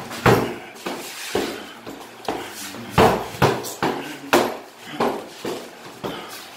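Punches landing on punching bags, a hanging heavy bag and a free-standing bag, in quick irregular combinations: about a dozen sharp thuds and slaps.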